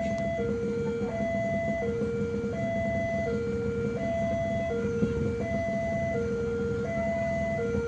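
Railway level-crossing warning alarm sounding: an electronic two-note ding-dong alternating a low and a higher note, each held about two-thirds of a second, repeating steadily, signalling that a train is approaching and the crossing is closed. A steady low rumble runs underneath.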